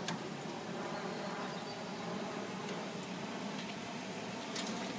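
Nordco 6008 hi-lift truck's engine running at a steady low hum as the truck rolls to a stop, with a short click at the start and another near the end.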